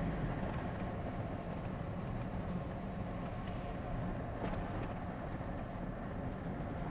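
Steady road and engine noise of a car being driven, a low rumble with a faint hiss over it.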